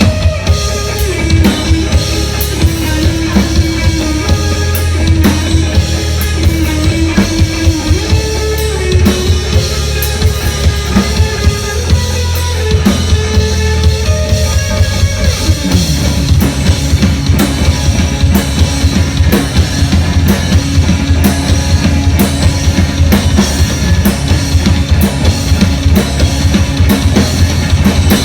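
Loud live band music: a steady drum beat with a strong kick drum under sustained melodic lines. About halfway through, the lower melodic line drops and the beat becomes busier.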